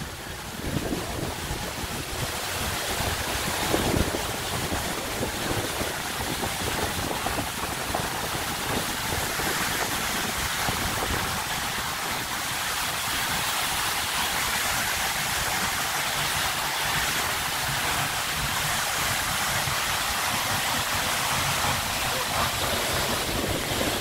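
Seljalandsfoss waterfall: a steady rush of water plunging into its pool, heard close up. Some low wind buffeting on the microphone in the first few seconds.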